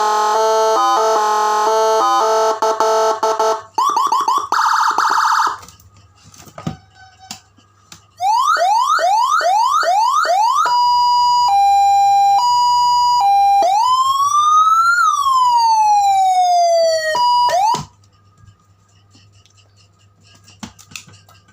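Electronic siren module with Whelen HHS-style tones sounding through a loudspeaker and stepping through its tones. First comes a harsh buzzing horn tone, then a short warble. After a pause come a fast repeating upward sweep, two alternating tones, and one slow rise and fall that cuts off suddenly, followed by a few faint clicks.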